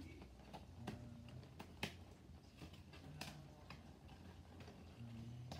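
Faint, scattered clicks and light taps of small objects being handled, the sharpest about two seconds in, over a low steady hum.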